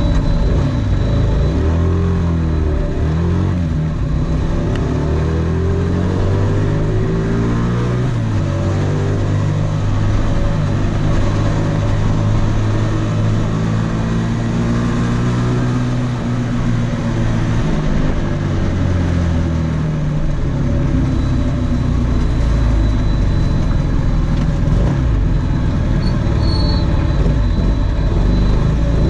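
Electric motors and propellers of a 250-size drone buzzing, heard up close from its on-board camera. Several pitches glide up and down together as the motor speeds change.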